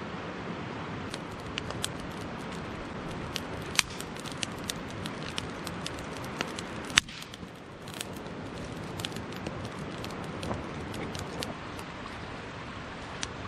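Campfire crackling: burning wood gives off sharp, irregular pops and snaps, two of them louder, about four and seven seconds in, over the steady rush of a mountain stream.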